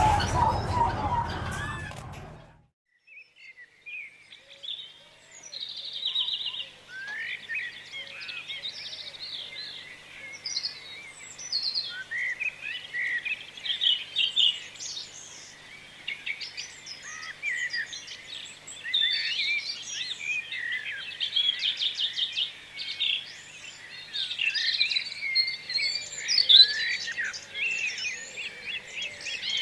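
A loud jumble of noise cuts off suddenly about two seconds in. After a brief hush, many small birds chirp and trill over one another in a continuous chorus.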